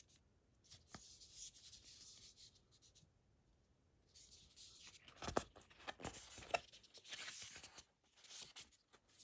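Faint rustling and rubbing of a matte paper booklet as it is handled and its pages are turned, with a few sharper taps or flicks in the second half.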